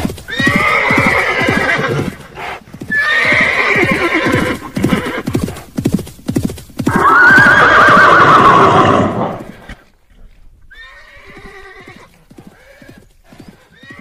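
Horses neighing over a fast clatter of hooves. Three long whinnies come in turn, the third the loudest with a rising-then-falling pitch, followed by a couple of fainter neighs.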